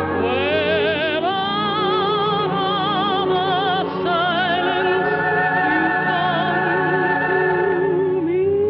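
A woman singing long held notes with a wide vibrato over orchestral accompaniment, in a musical number.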